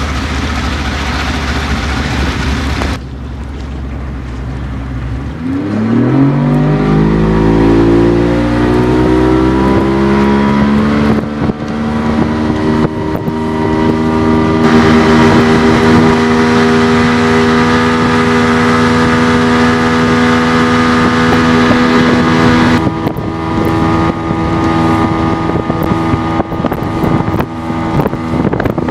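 Yamaha 70 hp outboard motor opened up: its pitch climbs steeply about five seconds in as the boat gets onto the plane, then holds a steady high note at speed. Near the end the note becomes rougher, with wind noise on the microphone.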